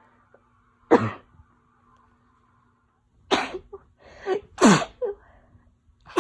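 A woman sneezing in a fit from a winter cold: a sharp sneeze about a second in, then two more close together past the middle, with another starting right at the end.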